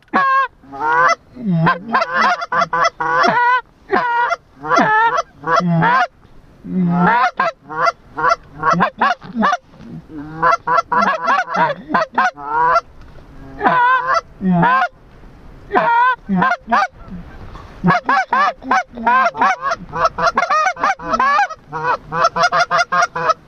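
Geese honking and clucking: loud, rapid honks, several a second, in runs with short breaks between them.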